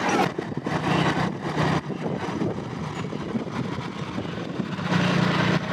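A steady motor drone with a low hum that swells for a moment about a second in and again near the end.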